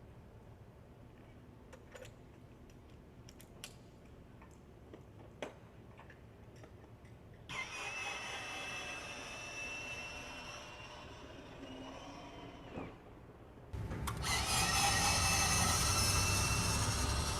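Jet engine of an F-16 running with a high whine over a rushing hiss. It comes in suddenly about seven seconds in, drops away near thirteen seconds, then returns louder for the last few seconds. Before it there is only a low rumble with a few faint clicks.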